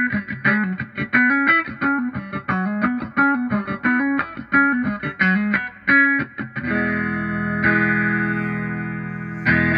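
Electric guitar played through a Vox 846 hand-wired wah pedal, lightly distorted: a fast picked single-note riff, then from about seven seconds in, chords left ringing, with a new chord struck near the end.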